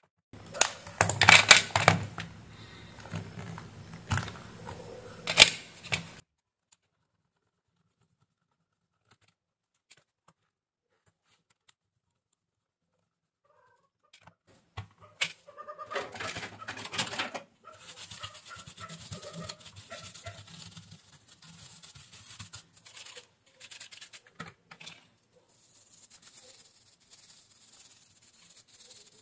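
Hands taking apart a Philips Norelco 7810XL electric shaver: loud plastic clatter and scraping as the shaver head comes off, then screwdriver clicks in the head. In the last third, a stiff brush scratches hair debris out of the cutter unit. There is a silent gap of several seconds in the middle.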